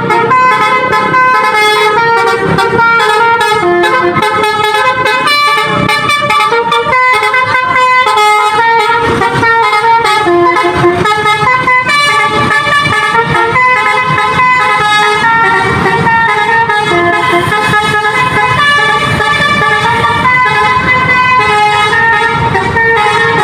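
Basuri telolet horn on a tour bus playing a continuous tune of stepped, multi-tone horn notes.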